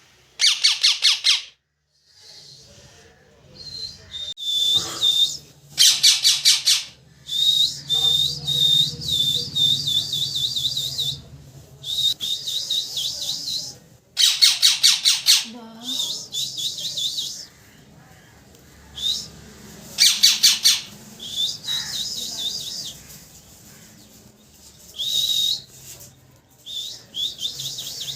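A parrot chirping and squawking loudly, in repeated bursts of rapid, shrill chirps and high trilled calls with short pauses between them.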